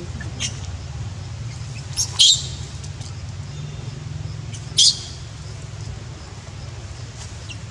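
Three short, high-pitched squeals from an infant macaque, two close together about two seconds in and one near five seconds, over a steady low hum.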